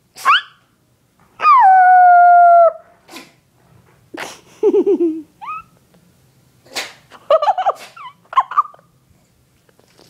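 Puppy howling: a short rising yelp, then one long held howl lasting over a second, followed by a few sharp huffs and a string of short yips and whines.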